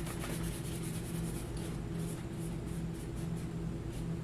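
Paintbrush dabbing and stroking acrylic paint onto a stretched canvas: a run of short scratchy strokes, thickest in the first second or so, over a steady low hum.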